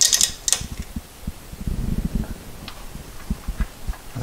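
Handling noise: low rumbles and scattered light knocks and ticks, with a few sharp crackles in the first half second, as a hand-held camera is moved and a hand brushes engine parts.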